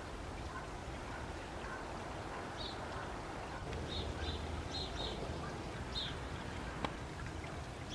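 Outdoor ambience with a steady low background rumble, and a small bird giving short high chirps, several in a row, starting a few seconds in. A single sharp click comes near the end.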